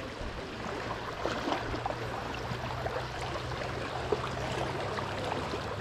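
Shallow river water rushing and burbling over a choppy stretch, heard with the microphone just above the surface, over a steady low hum.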